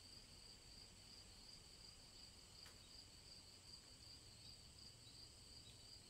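Crickets chirping faintly in a steady, high-pitched trill.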